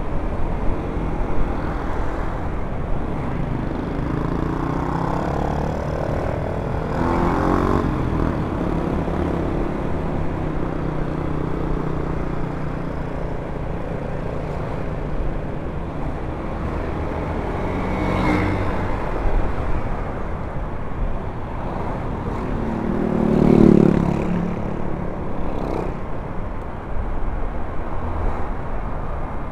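Honda Vario 125 scooter ride heard from the rider's helmet: the engine running steadily under wind rumble on the microphone, with other traffic passing. There is a louder swell of engine sound about 23 seconds in.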